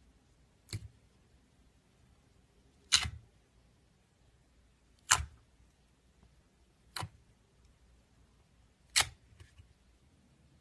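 Clear slime being played with by hand, giving five sharp clicks or pops spaced about two seconds apart.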